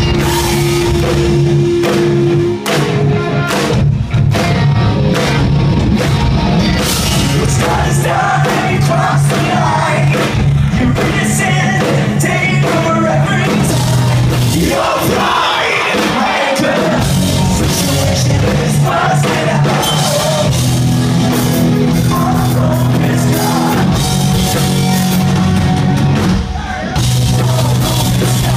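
Rock band playing live with electric guitars, bass, drum kit and a singer, recorded loud from within the audience. The bass and drums drop out for a couple of seconds about halfway, then come back in.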